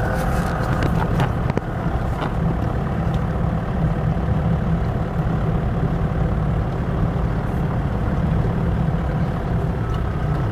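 Car engine and tyres on a dirt road, heard from inside the cabin while driving: a steady low rumble.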